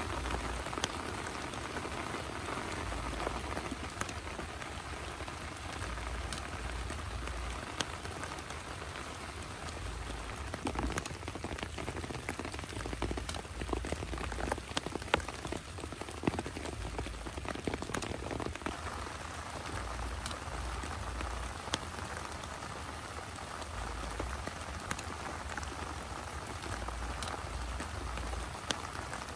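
Steady rain falling on grass and a nylon tent fly, an even hiss of drops. Scattered sharp clicks and taps come through it, thickest through the middle stretch.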